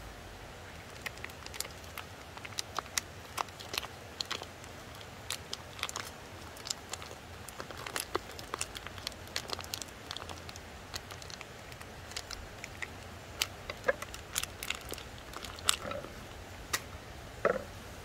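Irregular clicks and crackles of eating with wooden chopsticks off a wooden plate, with a plastic food wrapper crinkling as a sausage is unwrapped. Under them runs the steady hiss of creek water.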